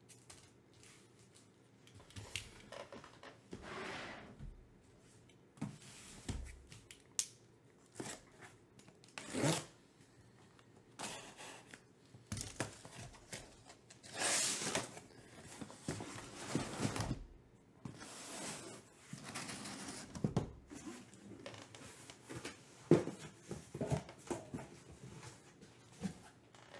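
A cardboard shipping case being opened by hand: irregular scraping and tearing of cardboard and packing tape, with one long loud rip about halfway through. Near the end come several sharp knocks as the shrink-wrapped card boxes are taken out and set down on the table.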